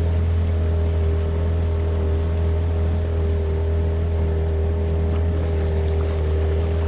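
An engine running steadily at constant speed, a low even hum with a steady higher tone over it.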